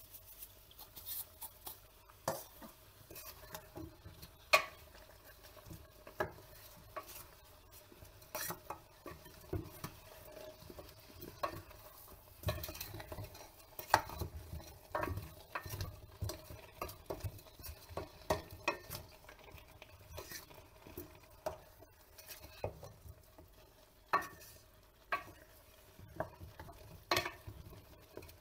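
Wooden spoon stirring beef shanks, potatoes and tomato sauce in a stainless steel pot, with irregular knocks and scrapes of the spoon against the pot.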